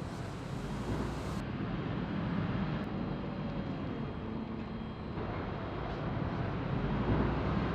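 Sawmill vibrating conveyor running steadily, a rumbling machine noise as it shakes along bark, wood chips and sawdust after debarking.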